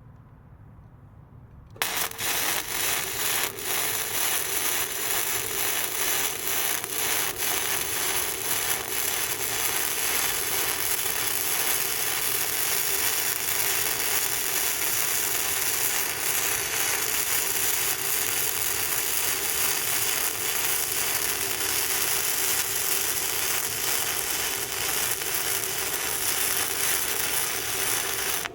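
Welding arc from a BestArc MIG145 inverter welder, striking about two seconds in and then crackling steadily without a break as a bead is laid, with a steady hum underneath.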